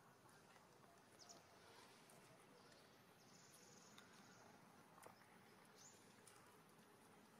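Near silence: faint outdoor ambience with a few faint high chirps and a short faint buzz around the middle.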